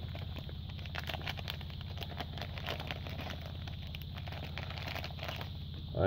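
Thin clear plastic bag crinkling and crackling as hands open it and pull out what is inside, easing off near the end, over a steady low hum.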